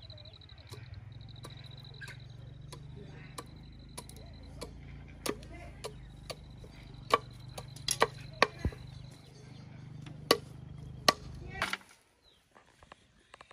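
More than a dozen irregular sharp knocks of blows on wood, the loudest between about seven and eleven seconds in, over a low steady hum that cuts off near the end.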